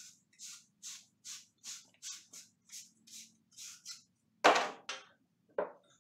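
Rhythmic scraping strokes on copper pipe, about two and a half a second, as it is worked by hand. Then a loud clatter about four and a half seconds in, followed by two lighter knocks.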